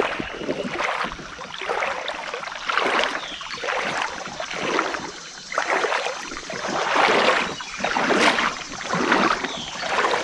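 River water sloshing and swishing in repeated surges, roughly one every second or so.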